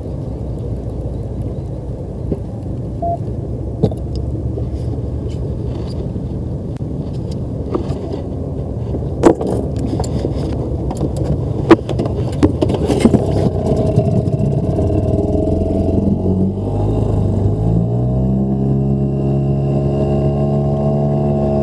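Fishing boat's engine running with a steady rumble, and a few sharp knocks around the middle. About three-quarters through, the engine speeds up: its pitch rises, then holds steady.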